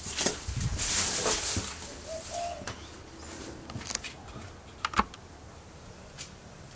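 Footsteps and rustling, a brief pigeon coo a couple of seconds in, then a few sharp knocks and clicks as an old wooden outhouse door with a latch is pushed open.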